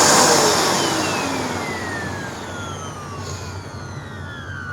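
Hoover NanoLite vacuum running its belt-driven brushroll, whose idler pulley is hot-glued to the roll and driven by a badly stretched belt. The machine is loudest at first, then fades, and its whine falls steadily in pitch.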